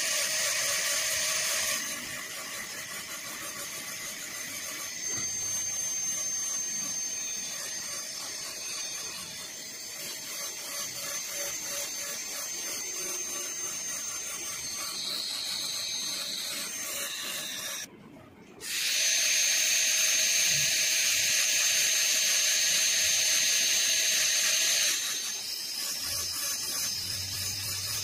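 High-speed dental handpiece with a bur whining steadily as it grinds down the cusps of a typodont molar, the occlusal reduction for a full metal crown preparation. The whine cuts out briefly about two-thirds through, then comes back louder for several seconds before easing near the end.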